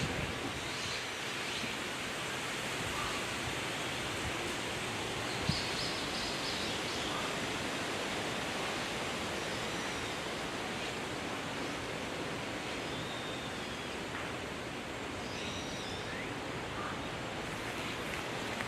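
Steady outdoor background hiss with a few faint, distant bird calls scattered through it, and one brief click about five seconds in.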